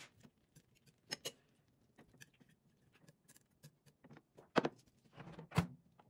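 Chopsticks clicking and tapping against a ceramic plate while food is turned over inside an oven, with two louder knocks near the end.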